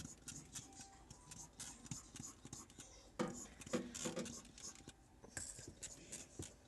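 Trigger spray bottle of microwave cleaner being pumped, with repeated clicks and short hisses of spray as the cleaner is coated on.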